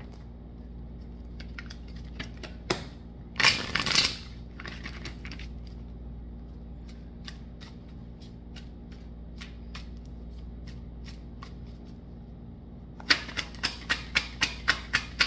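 A deck of tarot cards shuffled by hand: a short rustle of cards about three and a half seconds in, a few soft scattered card clicks, then near the end a quick, even run of sharp card snaps, about five a second, as packets of cards are slid and dropped in an overhand shuffle.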